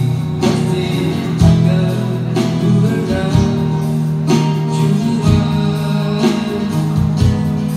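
Live acoustic guitar strummed in slow strokes about once a second, amplified through a PA speaker, with a man singing.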